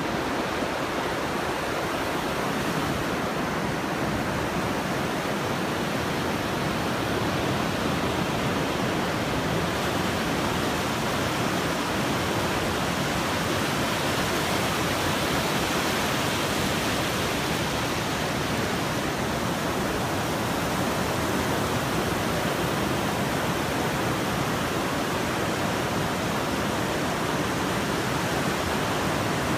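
Ocean surf breaking offshore and washing up a sandy beach, a steady rushing noise of water that swells slightly about halfway through.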